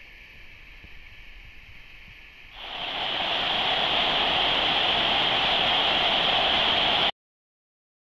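Waterfall rushing: faint at first, then much louder from about two and a half seconds in, and cut off abruptly near the end.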